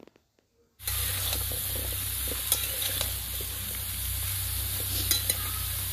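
Sweet-pumpkin pieces sizzling as they fry in oil in a metal karahi, with a few sharp clicks and scrapes from a spatula stirring them. The sizzle cuts in abruptly about a second in, after near silence.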